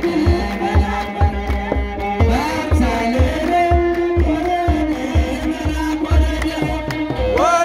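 Ethiopian Orthodox hymn (mezmur) sung by a group of voices over kebero drums beaten in a steady rhythm.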